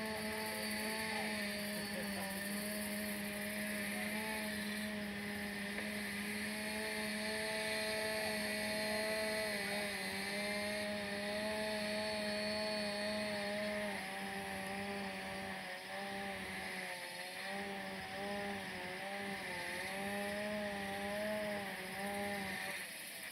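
A small engine running at a fairly steady speed, its pitch wavering slightly, over a steady hiss.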